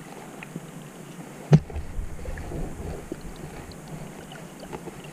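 Muffled underwater ambience heard through a submerged camera, with scattered faint clicks and one sharp knock about one and a half seconds in, followed by a brief low rumble.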